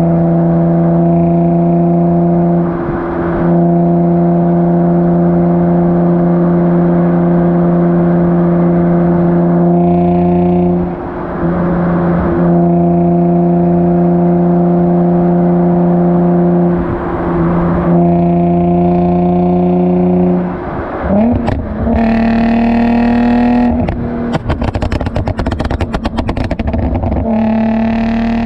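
Infiniti G35's 3.5-litre V6 through a Motordyne Shockwave exhaust with ART pipes, heard close at the tailpipes: a steady exhaust drone at constant revs, dipping briefly a few times. After about 21 seconds the engine note drops and changes pitch, and near the end a rapid run of crackles and pops comes from the exhaust, the pops-and-bangs feature of the Uprev tune.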